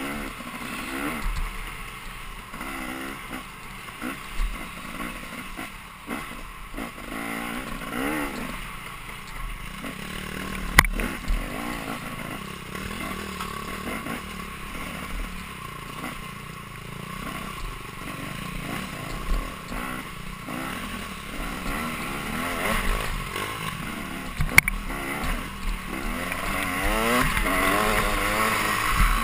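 Dirt bike engine revving up and down as it is ridden hard, heard on-board with wind rush, its pitch rising and falling constantly, with a couple of sharp knocks partway through.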